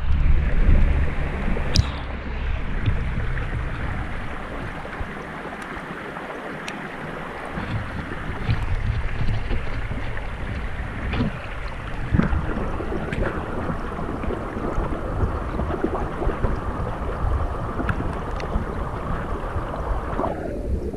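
Running water of a small, shallow stream, picked up through a GoPro's waterproof housing at and below the surface: a dense, even rush of flow with a heavier low rumble in the first few seconds, then steady muffled flow with scattered faint clicks.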